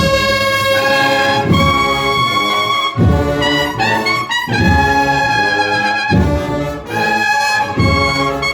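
Brass band music: trumpets and trombones playing sustained chords that change every second or two, over low beats about every one and a half seconds.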